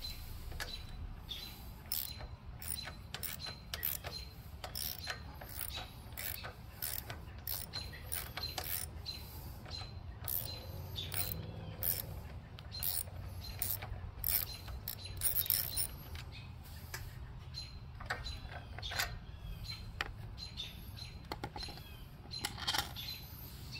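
Hand ratchet wrench clicking in short irregular runs as the nuts holding the air filter housing to the carburetor are backed off, with small metal knocks from the parts.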